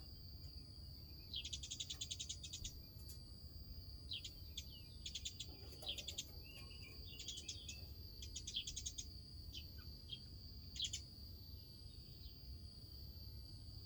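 Birds squabbling: a series of short bursts of rapid chattering calls, over a steady high trill of crickets.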